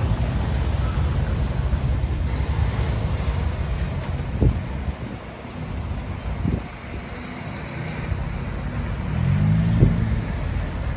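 Road traffic passing on wet pavement: tyre hiss and engine rumble, with a few dull thumps. Near the end a large truck's engine note rises and falls, the loudest moment.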